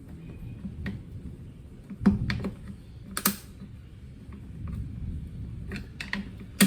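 Plastic clicks and knocks from a Mercedes C250 W204 airbox being unclipped and pulled out of the engine bay: a few separate sharp clicks, the loudest about two and three seconds in.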